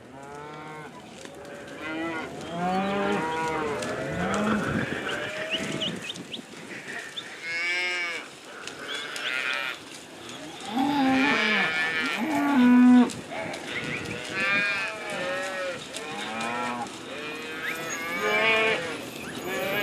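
A herd of cattle mooing, many calls overlapping one after another, a few deep and long, others higher and bending in pitch.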